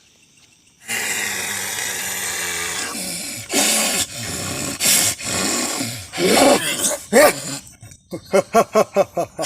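A person's voice growling and roaring hoarsely in long harsh bursts, then breaking into a rapid run of short rasping pulses, about five a second, near the end, in the manner of a possessed person in trance.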